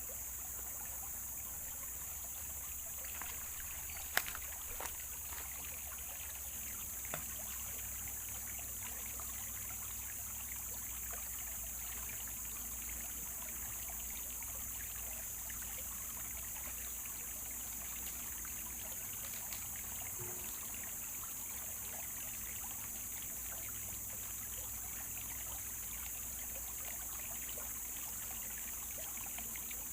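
Steady rush of a flowing river, with one sharp click about four seconds in.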